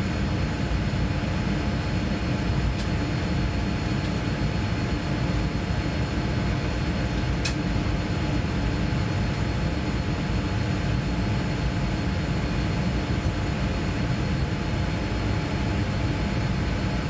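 Steady cabin noise inside a Boeing 787-9 airliner during pushback: a constant low rumble with several steady whining tones over it. A single brief click about seven and a half seconds in.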